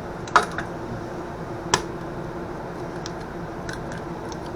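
Eggs cracked against the rim of a mixing bowl: two sharp cracks about a second and a half apart, then a few faint clicks of shell and bowl.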